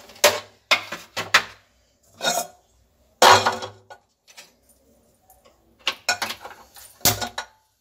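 Kitchen clatter of a metal wok being set down on a gas stove's grate and a tray of plastic bowls being moved. There is a string of separate clacks and knocks, the loudest a little over three seconds in and several more close together near the end.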